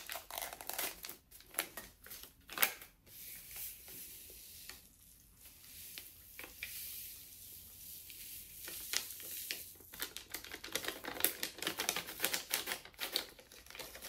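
Foil MRE drink-powder pouch crackling and crinkling as it is torn open and handled. In the middle there is a steady soft hiss as the orange drink powder pours into a mug of water, and the crinkling picks up again near the end.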